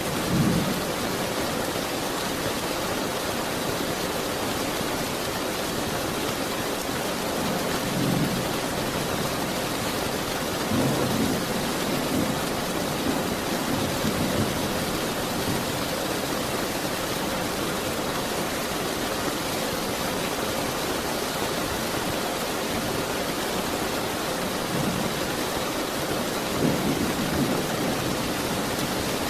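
Steady rain falling, with short low rumbles of thunder several times: near the start, around a third of the way in, and near the end.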